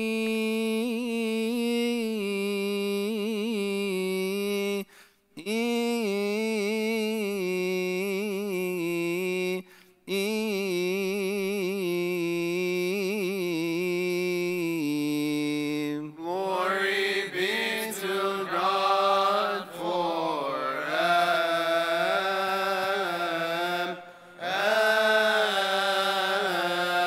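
Coptic Orthodox liturgical chant: a male voice sings long, ornamented phrases with a wavering vibrato, pausing for breath every few seconds. About two-thirds of the way in, the chant moves to a higher, louder and busier line.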